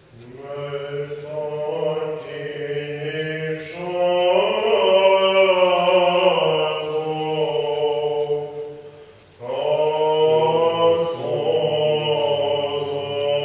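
Byzantine chant: a chanter singing long melismatic phrases over a steady low drone. The singing pauses briefly about nine seconds in and then starts a new phrase.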